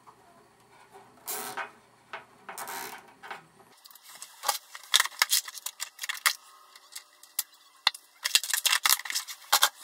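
Plastic zip tie being fastened around loose SATA cables: a couple of brief rustles, then a long run of sharp, uneven ratcheting clicks as the strap is pulled through its head, coming thickest near the end.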